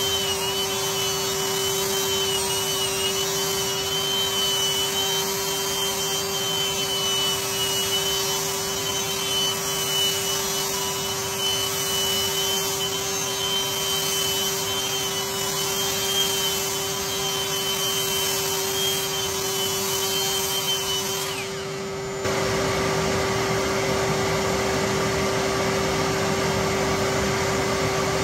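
Power sander running against fresh plaster: a steady motor whine with scraping and rubbing over it. About 21 seconds in the high whine stops, the sound dips briefly, then carries on as a fuller, steadier motor noise.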